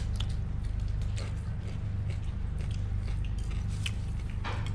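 People eating: scattered small clicks and taps of spoons and forks on plates and bowls, over a steady low hum.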